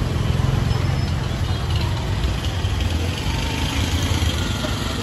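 An engine idling nearby, a steady low rumble.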